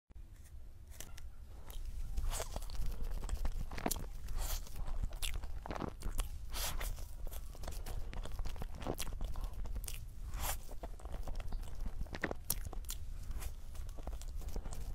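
Close-miked handling and eating sounds of a soft cream-filled durian crepe: irregular sharp clicks and wet crackles, several each second.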